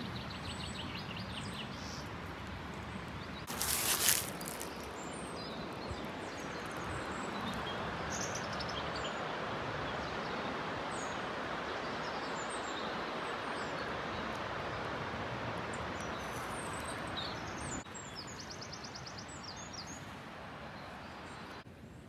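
Steady rush of flowing mountain stream water, with small birds chirping over it and a quick trill near the end. A brief loud burst of noise about four seconds in, and the rush drops quieter near the end.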